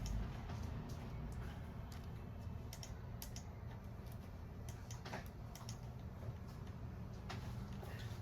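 A few scattered light clicks, like single keys pressed on a computer keyboard, over a low steady hum.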